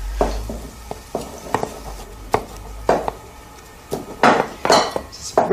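Knife roughly chopping leftover cold roast chicken on a wooden chopping board: irregular knocks of the blade against the board, a few sharper ones in the second half.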